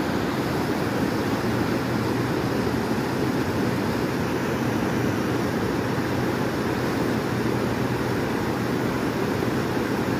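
Fast-flowing river rapids rushing: a steady roar of churning whitewater.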